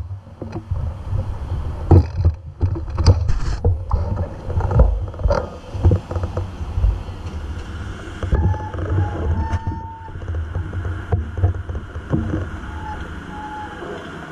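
Low rumble of wind and road noise from a moving bicycle, with frequent knocks and rattles. A faint high tone comes and goes over the last several seconds.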